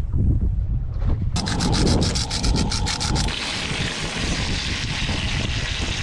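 Wind buffeting the microphone, then, about a second in, bluegill frying in oil in a pan on a camp stove: quick crackles at first, settling after a couple of seconds into a steady sizzle.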